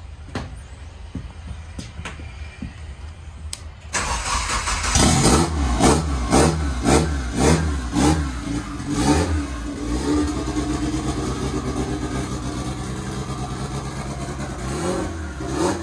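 The Hyundai's engine is cranked and catches about four seconds in, after a few faint clicks while the fuel pump primes. It is blipped up and down several times in quick succession, then settles into a steady idle.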